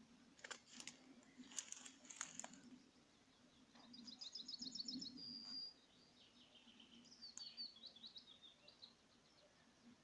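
Faint songbird song: a quick run of high repeated notes ending in a held whistle about four seconds in, and another run of high notes around seven seconds in. A few sharp clicks come in the first couple of seconds.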